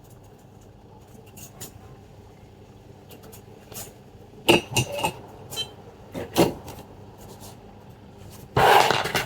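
Small metal hand tools clicking and clattering on a repair bench over a steady low hum, with a few sharp knocks in the middle and a louder half-second clatter near the end.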